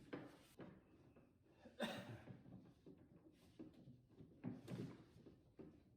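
Near silence, broken by a few faint clicks and scrapes of the old door lock actuator being worked loose inside the car door, about two seconds in and again a little before the end.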